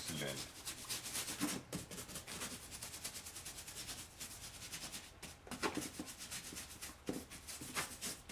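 Paintbrush bristles scrubbing paint onto a textured castle-wall test strip in quick, repeated rubbing strokes, with a few short pauses.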